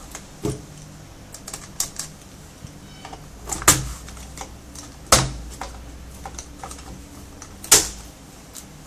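Sharp plastic clicks and knocks, about five of them a second or two apart, as the plastic bottom access cover of a Lenovo G430 laptop is worked loose with a screwdriver and lifted off.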